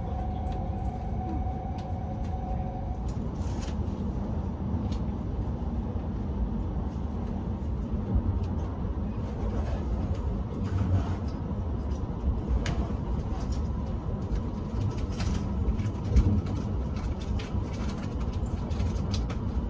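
Cabin noise of a Hayabusa Shinkansen under way: a steady low rumble with scattered light clicks. A pair of faint steady tones stops about three seconds in.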